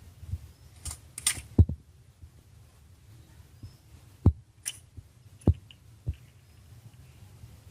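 A woodpecker pecking at its own reflection: a few sharp, irregular taps spaced a second or more apart, with brief scratchy rustles in between.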